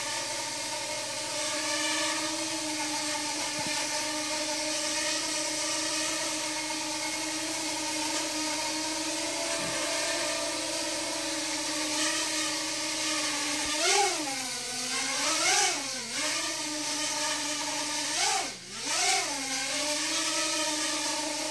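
Small quadcopter drone flying indoors, its motors and propellers giving a steady buzzing whine. About two-thirds of the way through, the pitch swoops down and back up several times as the throttle changes.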